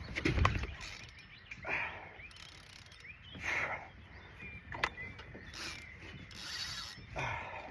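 Fishing reel ratcheting in repeated bursts every second or two while a heavy catfish is played on a hard-bent rod, with one sharp click near the middle.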